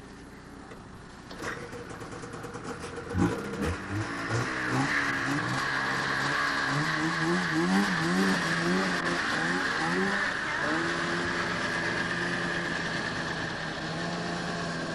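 Snowmobile engine revving up and down unevenly as the sled gets going, then settling into a steady run at constant speed about ten seconds in. A knock comes about three seconds in as the engine picks up.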